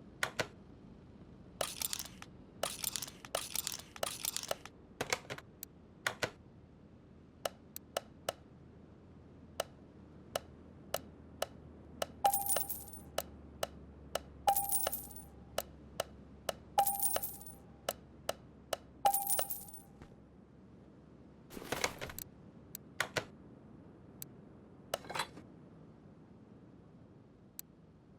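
Small metal objects clicking and clinking against each other, with four ringing metallic strikes about two seconds apart midway.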